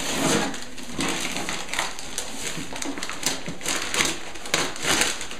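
Plastic mailing envelope being slit with a small blade and torn open by hand: irregular crinkling and tearing of the plastic.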